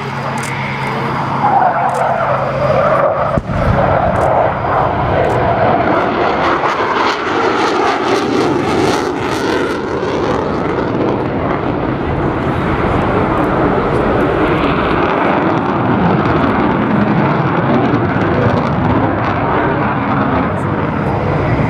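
Jet noise from an RAF Tornado GR4's twin RB199 turbofans as it flies its display, a loud, steady rush with a brief dip about three and a half seconds in.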